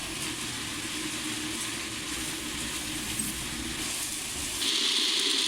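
Firework star-rolling machine running with a steady rumble as its drum turns. Near the end the low rumble drops away and a steady high hiss takes over.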